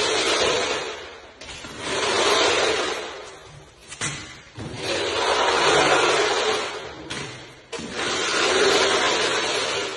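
Liquid self-levelling floor compound pouring from a bucket and splashing onto the floor, a rushing flow that swells and fades several times and breaks off abruptly a few times.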